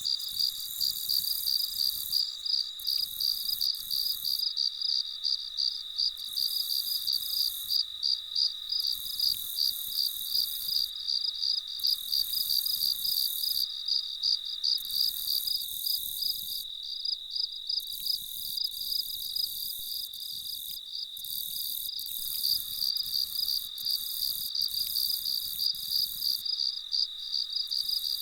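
Meadow ambience of crickets chirping: a steady high-pitched trill with fast, even pulses, joined by a still higher insect buzz that starts and stops every second or two.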